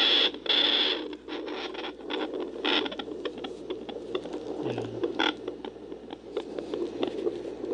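Home fetal Doppler monitor's speaker giving a steady low whooshing hum under irregular scratchy crackles, with a loud burst of static in the first second, as the probe is slid over the pregnant belly searching for the baby's heartbeat.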